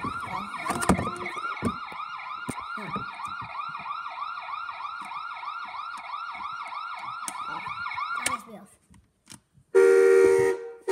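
Ride-on toy police car's siren playing through its small speaker: a fast, evenly repeating rising-and-falling wail that cuts off about eight seconds in. About a second later the toy's horn sounds, a loud steady honk.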